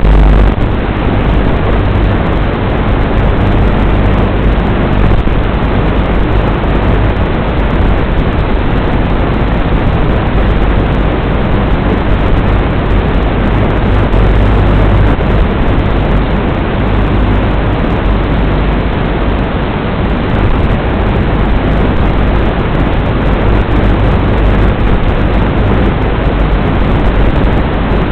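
Loud, steady rushing noise with no clear pitch, like hiss or wind rumble.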